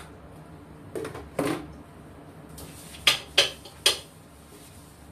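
Hard objects knocking against a ceramic bathroom sink and countertop during cleaning. There are two duller knocks about a second in, then three sharp clacks in quick succession between about three and four seconds.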